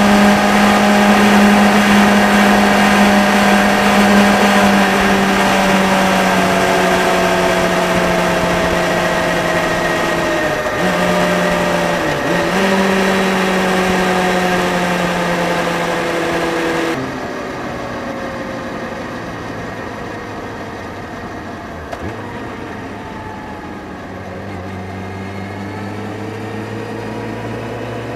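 Motorcycle engine running under road wind noise, picked up by a bike-mounted action camera while riding. The engine note sinks slowly as the bike eases off. About two thirds of the way in it switches abruptly to a quieter, lower engine note, which rises again near the end.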